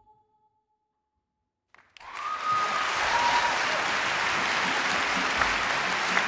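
Silence after a song ends, then about two seconds in a theatre audience breaks into applause, which holds steady.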